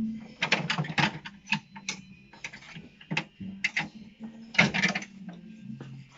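Irregular metallic clicks and clinks of hand tools and cover bolts being worked while the inspection cover of a Harley-Davidson Sportster's primary case is removed.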